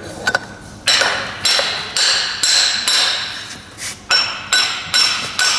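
Repeated hammer blows on steel, about two a second, each one sharp with a short metallic ring. The blows drive a tool set into the drill-pipe camera running tool, knocking the housing round until its alignment marks line up.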